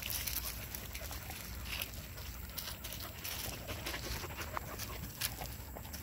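Young dogs at play: irregular scuffling and rustling with scattered soft clicks.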